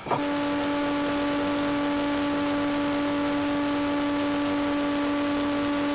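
Woodworking machine running at a steady speed: an even, high motor hum with no rise or fall. It comes in suddenly at full level right at the start.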